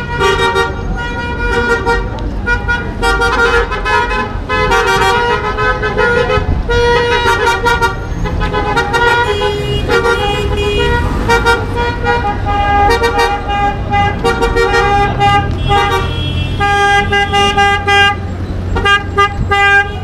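Vehicle horns hooting again and again, short toots and longer blasts one after another and sometimes overlapping, over the low rumble of traffic on a busy street.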